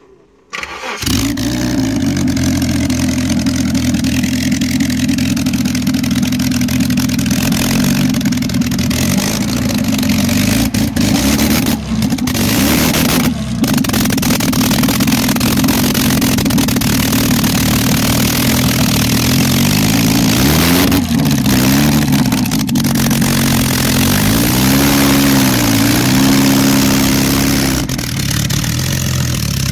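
Inline four-cylinder engine in a Beetle-bodied rat rod catching about a second in and running loudly, revved up and down a few times in the second half.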